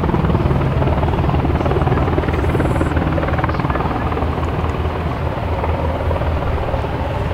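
de Havilland Canada DHC-3T Texas Turbines Super Otter's Garrett TPE331 turboprop and propeller running steadily as the aircraft flies low past, with a fast, even propeller beat.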